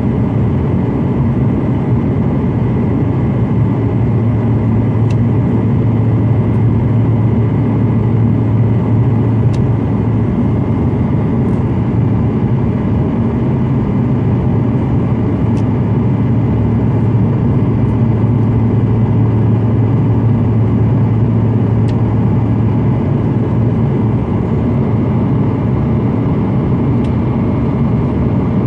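Steady cabin drone of a passenger jet in flight: engine and airflow noise with a strong low hum, heard from inside the cabin.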